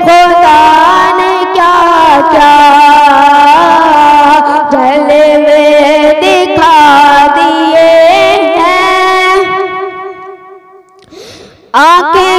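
A boy's solo voice sings a naat, an Urdu devotional poem, into a microphone, holding long, ornamented notes with a wavering pitch. The phrase fades out about ten seconds in, and after a short breath he starts the next line near the end.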